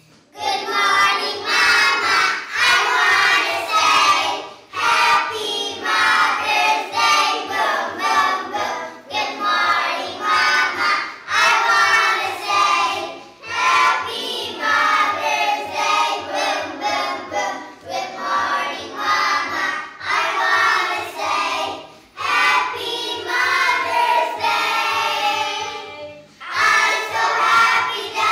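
A group of young children singing a welcome song together in English, in sung phrases with short breaks between them.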